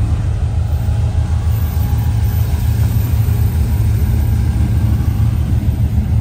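Low, steady engine and exhaust note of a 1957 Chevrolet Bel Air convertible rolling slowly past.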